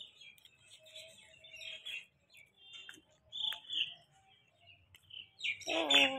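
Small birds chirping in short scattered bursts. Near the end a louder pitched call, sliding slightly downward, lasts about a second.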